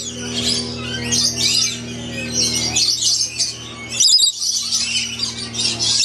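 A flock of rainbow lorikeets chattering and screeching, a dense run of shrill, high calls that gets louder about four seconds in, over a steady low hum.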